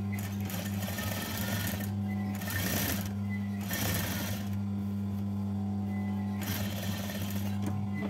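Sewing machine stitching in four short runs of about a second each, with pauses between, over a steady low hum.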